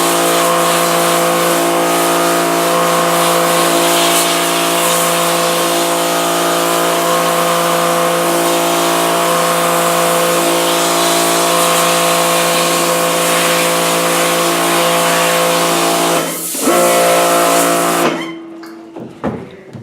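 Pressure washer running, a steady motor hum under the hiss of its water jet blasting emulsion out of a screen-printing screen. It falters briefly, then cuts off suddenly near the end, leaving a few knocks.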